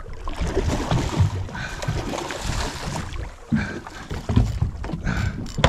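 Noise of water and wind around a small fishing boat, with irregular low knocks.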